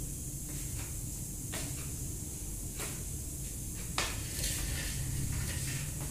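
Light clicks and knocks of hard plastic toy pieces being handled and set down on a tiled floor, a few times, the sharpest knock about four seconds in, over a steady background hiss.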